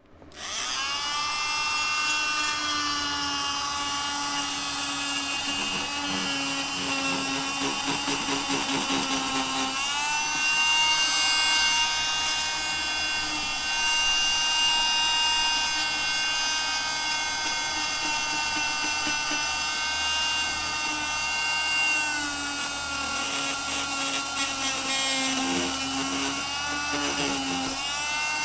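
Electric oscillating saw running: a steady high whine that rises as the motor spins up at the start. The pitch steps up about ten seconds in and drops back around twenty-two seconds, as the speed changes.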